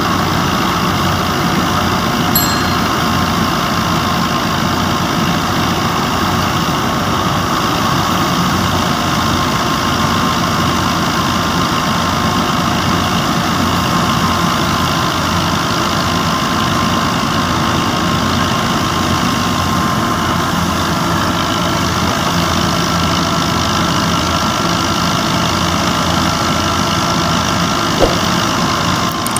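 New Holland Fiat 640 four-cylinder diesel tractor engine running steadily under load, driving a wheat thresher through its PTO, with the thresher running alongside it. A thin steady whine runs through the sound, and there is a single knock near the end.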